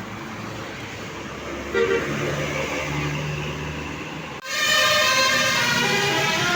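Bus telolet horn: a set of multi-tone air horns sounding, with a short blast near the two-second mark. About four seconds in the sound cuts abruptly to a louder passage of horn tones stepping between pitches in a melody.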